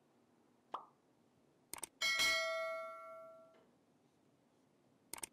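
A short click, then a pair of clicks and a single bright bell ding that rings for about a second and a half and fades, then another pair of clicks near the end. These are the mouse-click and notification-bell sound effects of an animated subscribe-button overlay.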